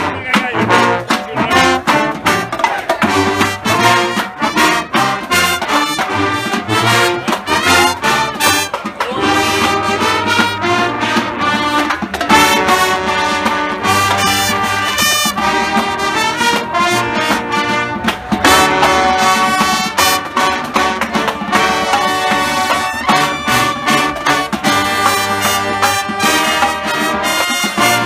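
College marching band playing live: trumpets, trombones and sousaphone in full chords over a drumline's steady beat.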